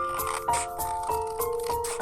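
Cheerful background music: light mallet-percussion melody over a shaker-like rhythm.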